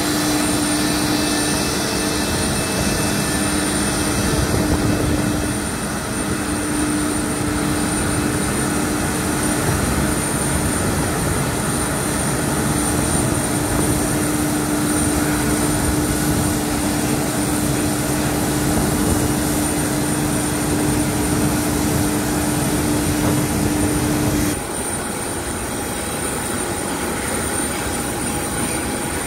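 Airbus A318 jet engines running at idle: a steady rush with a high whine and a low hum. Near the end the low hum cuts off abruptly and the sound drops a little.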